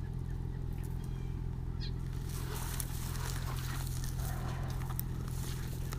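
American robins making short calls, with rustling and crackling in grass that starts about two seconds in, over a steady low hum.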